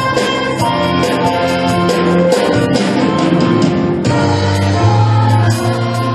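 The national anthem played with instrumental accompaniment while the gathered assembly sings along.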